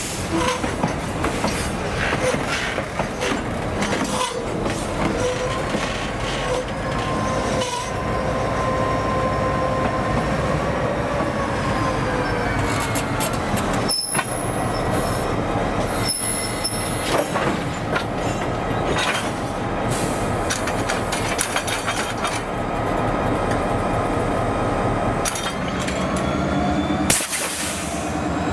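CSX EMD diesel locomotives and gondolas rolling slowly past on jointed track. The engines run under a rumble of steel wheels, with scattered clicks over the rail joints. Flanges squeal in thin tones that drift in pitch, and a higher, sharper squeal comes about halfway through.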